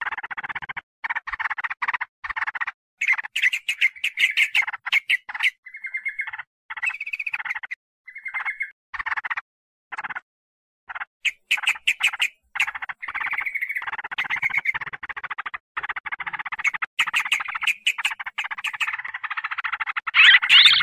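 Yellow-vented bulbuls (trucukan) chattering in fast, noisy runs of short notes. The runs come in stop-start bursts at first and become a near-continuous racket later, loudest near the end. It is a bird-trapping lure recording of the agitated call meant to provoke wild trucukan.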